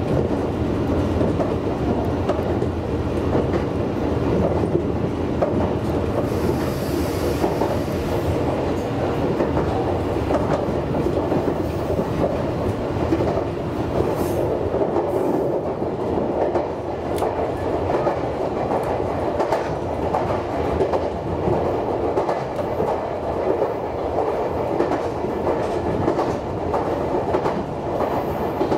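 Meitetsu 6800 series electric train running between stations, a steady rumble of wheels on rail with scattered clicks as the wheels pass over rail joints.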